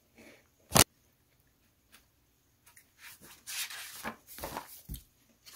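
A single sharp click about a second in, then paper rustling as book pages are handled and turned, with a soft knock near the end.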